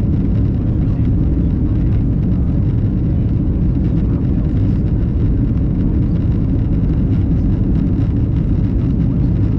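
Steady low rumble of an Airbus A330's cabin in flight: engine and airflow noise heard from a window seat.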